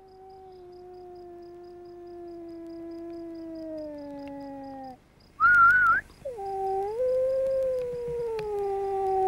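Gray wolf howling: one long howl slowly falling in pitch, then after a short break a brief, higher, wavering cry, and a second howl that rises and then holds steady.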